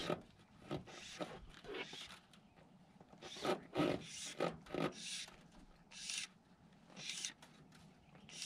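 Fly line being stripped in by hand through the rod guides while a hooked trout is played: a series of short rasping swishes at an uneven pace.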